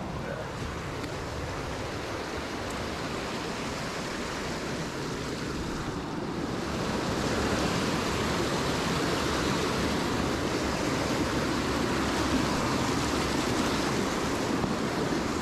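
Creek water rushing steadily, a full even wash of noise that grows louder about seven seconds in.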